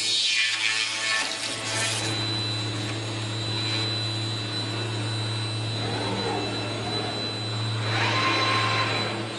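Routech Oikos CNC machining centre with a large circular saw blade running: a rush of cutting noise dies away over the first two seconds, leaving a steady low hum and a steady high whine. Around six and eight seconds in, the servo-driven head moves and rotates with rising and falling motor whines.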